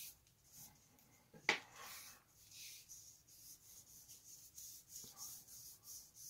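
Faint scratching strokes of a hand tool rubbed along a wooden dowel, distressing the wood to raise its grain, about one or two strokes a second. A sharp click about one and a half seconds in.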